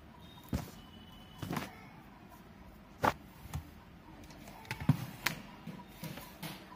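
Irregular knocks and bumps, about six of them, the loudest about three seconds in and again about five seconds in, as things are handled and moved on a hard floor.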